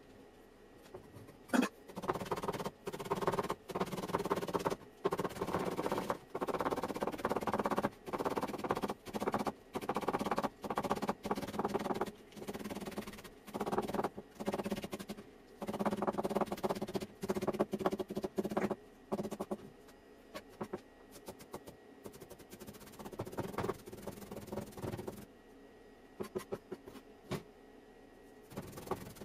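Knife chopping rapidly on a cutting board, in bursts of a second or two with short pauses between them, thinning out near the end.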